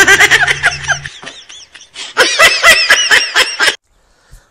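A person laughing in two quick, high-pitched bursts, each a rapid run of short pulses, that stop sharply near the end.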